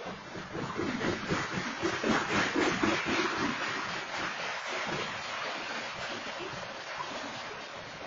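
Freight train cars rolling past a grade crossing: a rushing rumble of wheels on rails, loudest about two to three seconds in, heard through an outdoor security camera's microphone.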